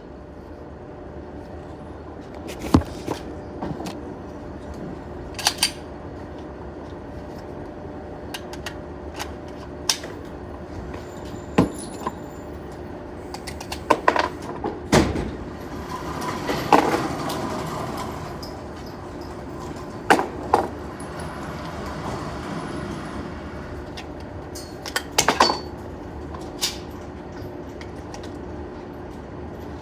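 Pistol shots at a shooting range: about a dozen sharp reports spaced unevenly, some in quick pairs, over a steady hum.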